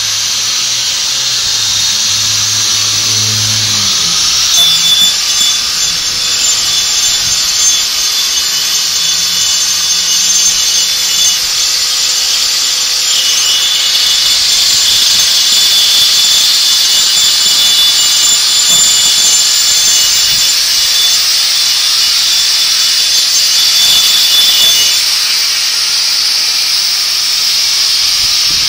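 Handheld power tool running steadily on a steel fire escape, a loud high hiss with a faint whine through it.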